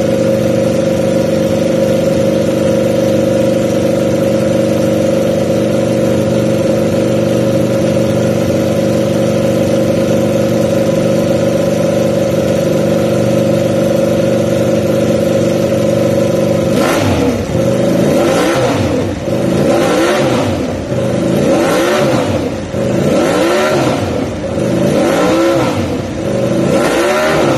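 Ducati V4 race superbike engine idling steadily. After about seventeen seconds the throttle is blipped repeatedly, about six quick revs that rise and fall.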